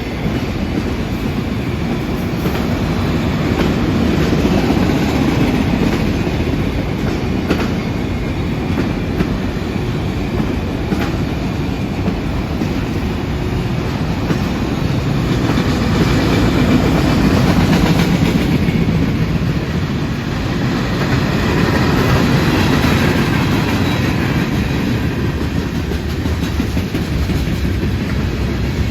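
CSX train rolling past at speed: a steady rumble of steel wheels on rail, with the rhythmic clickety-clack of wheels over rail joints and scattered sharp clicks.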